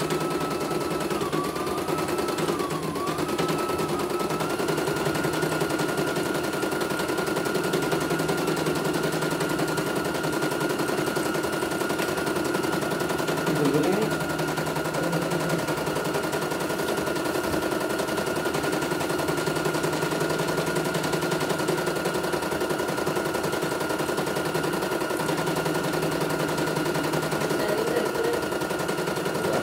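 CNY E900 computerized embroidery machine stitching a design: a rapid, steady needle clatter with a high motor whine that wavers for the first few seconds, then holds steady. It is sewing the last thread colour of the design.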